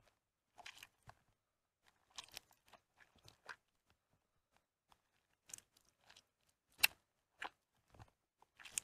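Hands squeezing and crushing soaked, mushy bar soap in a dish of soapy water: irregular wet squelches and squishes, one sharper squish late on.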